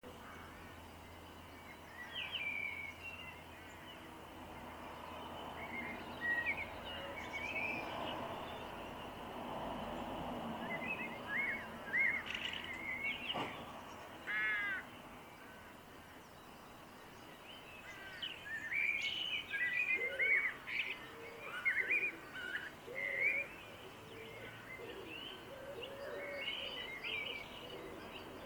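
Carrion crows cawing amid the chirps and songs of small garden birds, with a clear caw about halfway through.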